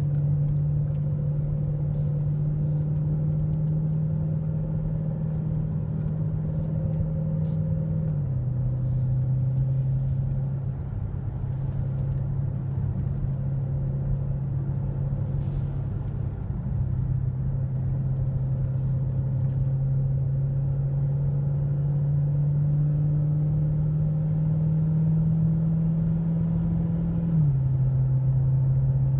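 Dodge Charger SRT Hellcat's supercharged 6.2-litre Hemi V8 heard from inside the cabin, pulling at a moderate, steady throttle. Its note climbs slowly and drops suddenly twice, about eight seconds in and near the end, as it shifts up a gear.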